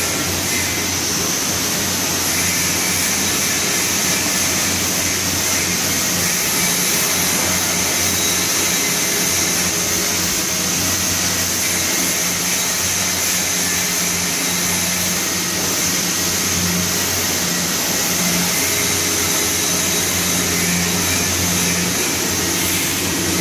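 Steady mechanical whirring and hiss from welding-shop machinery, unchanging throughout, with a low hum under a high hiss.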